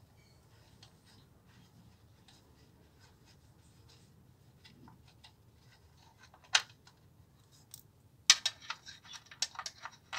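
Small metallic clicks and scrapes of bolts being undone and a metal motorcycle crankcase guard being handled. Mostly quiet at first, with one sharp click about six and a half seconds in and a run of clicks and scrapes in the last two seconds.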